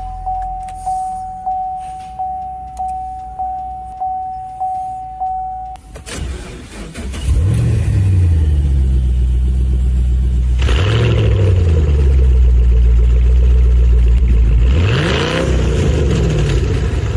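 An in-car warning chime sounds steadily, about one and a half beeps a second. After about six seconds the 2011 Camaro SS's 6.2-litre V8 cranks, starts and runs loud, blipped up in revs three times.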